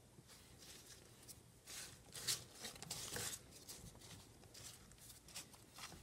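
Faint rustling and crackling of dry shredded cardboard bedding as a gloved hand spreads it across a worm bin, a cluster of louder crackles about two to three seconds in.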